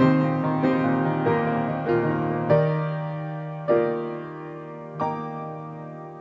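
Grand piano played alone in a gentle instrumental passage between sung lines. Notes and chords are struck about twice a second at first, then fewer and further apart, each chord left to ring and fade.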